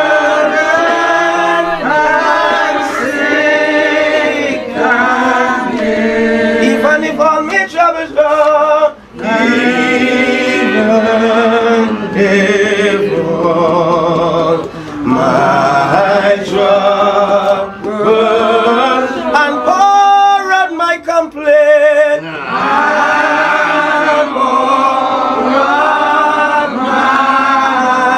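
Church congregation singing a hymn together, unaccompanied, with voices holding long notes.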